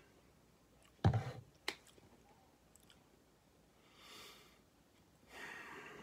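A plastic sports-drink bottle set down on a table with a thump about a second in, followed shortly by a sharp click. Later come two soft breaths.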